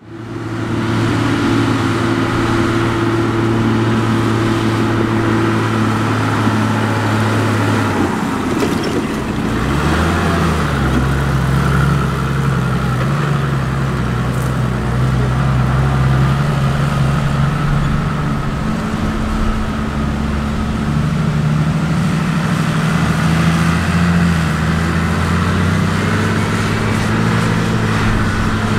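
Heavy farm machinery at work: a Claas Jaguar forage harvester chopping maize with tractors alongside, giving a loud, steady engine drone. The engine note shifts in pitch about eight seconds in and again around ten seconds, and it rises and falls a little later on.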